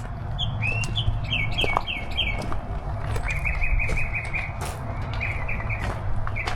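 Small songbird chirping in quick series of short, curved notes, a few groups of three to five, with a faster run of notes partway through. A steady low hum runs underneath.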